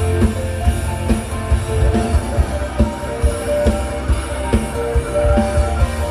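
Band music with a drum kit and bass keeping a steady beat of a little over two hits a second, under a held melody line.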